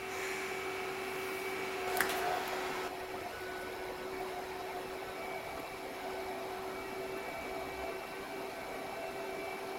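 Mikrosha 2000 induction heater running, heating a 22 mm stainless steel bar in its coil: a steady hum with a few held whining tones. A single sharp click about two seconds in.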